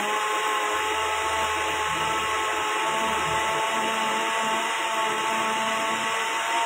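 A small motor running steadily: a constant whine over a hiss.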